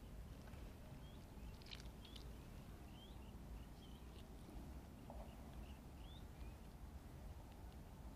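Quiet pond-side ambience with a small bird calling faintly, a string of short rising chirps about every half second to second, plus a faint click or two.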